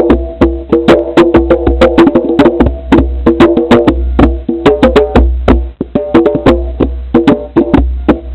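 Percussive music: a fast, dense run of sharp struck notes, each ringing with a short pitched tone, over a low pulsing rumble.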